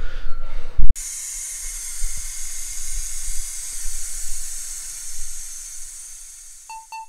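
A steady, high hiss, like gas escaping under pressure, starts suddenly after a short knock about a second in and slowly fades away. Near the end a steady electronic tone begins.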